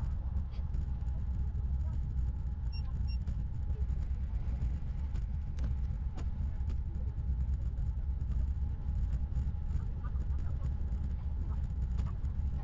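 Steady low rumble of wind and road noise on a bicycle ride, with two short electronic beeps about three seconds in.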